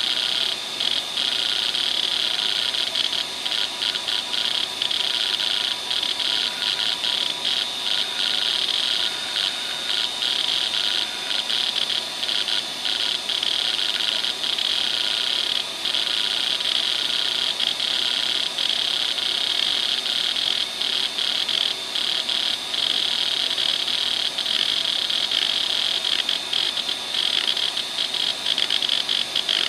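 Western Digital WDAL2540 2.5-inch 540 MB hard drive running hdmotion. The heads seek back and forth continuously in sweeping patterns, making a rapid chatter over the steady high hiss and whine of the spinning drive.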